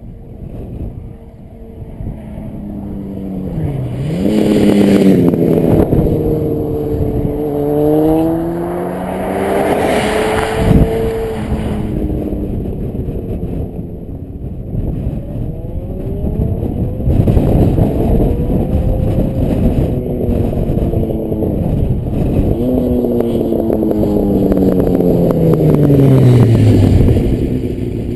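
Honda CBR900RR Fireblade inline-four engine through an aftermarket Devil exhaust, revving hard as the bike accelerates past several times, its pitch climbing through the gears and dropping away as it goes by. A single sharp crack sounds about ten seconds in.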